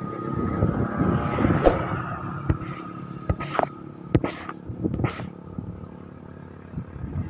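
Heavy road vehicle's engine running steadily as a bus or truck labours up a hill, with several sharp clacks and knocks about two to five seconds in.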